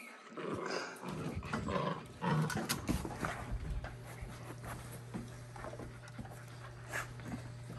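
Young dogs panting and scuffling as they tug at a plush toy, with sharp clicks and knocks from paws and the toy. A low steady hum comes in about three and a half seconds in.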